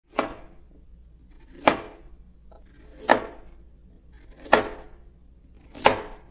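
Countdown intro sound effect: five sharp hits about a second and a half apart, each with a short decaying tail, one for each number counted down.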